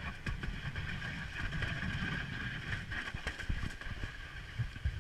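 Monte wicker toboggan sliding down a steep asphalt street: its wooden runners scrape over the road in a continuous rough low rumble with a higher hiss, broken by scattered knocks.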